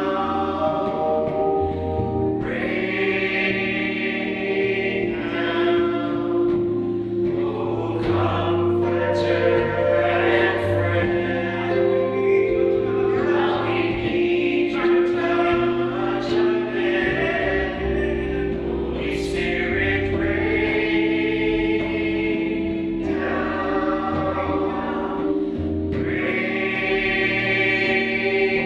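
Mixed men's and women's voices of a small worship team singing a worship song together into microphones, with steady instrumental accompaniment underneath.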